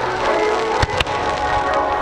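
Fireworks going off, two sharp bangs in quick succession about a second in, over continuous bon-odori festival music.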